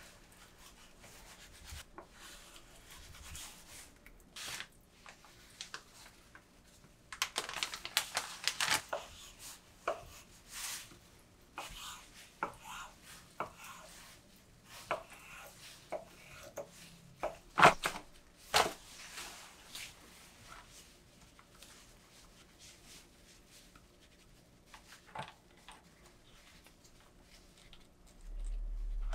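Kitchen knife slicing and dicing a raw salmon fillet on a wooden cutting board: irregular cutting strokes and knife knocks on the board, busiest about a quarter of the way in, with two sharp knocks near the middle. Later there is quieter handling, with a short low rumble at the very end.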